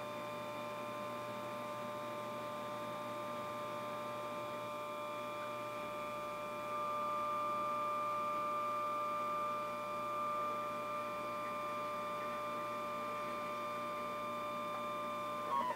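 Motorized camera slider's motor whining: a steady cluster of high tones that swells slightly about seven seconds in, then stops suddenly near the end with a couple of clicks.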